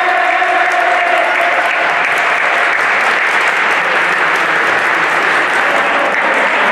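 Spectators in a sports hall applauding: a steady, dense clatter of many hands clapping.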